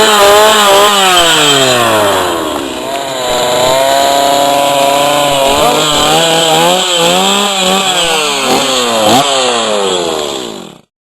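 Chainsaw engine revving up and down over and over, its pitch rising and falling, then cutting off abruptly near the end.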